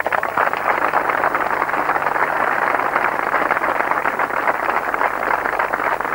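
A large crowd of soldiers applauding: dense, steady clapping that breaks out suddenly and keeps up evenly.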